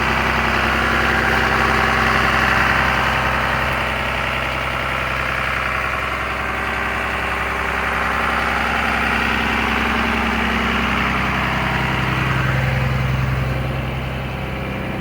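2004 Blue Bird TC/2000 school bus engine idling steadily.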